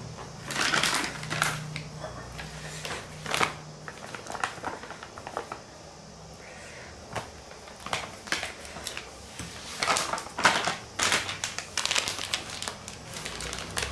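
Plastic flour packet crinkling and rustling in irregular bursts as it is handled and flour is poured from it into a steel measuring cup.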